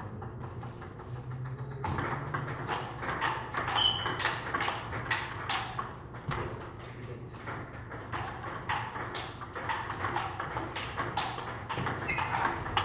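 Table tennis ball clicking back and forth between paddles and table in a rally: a rapid, irregular series of sharp ticks, over a low steady hum.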